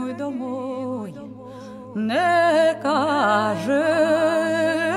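Music: a voice singing a slow melody with strong vibrato over a steady low drone, growing louder about two seconds in.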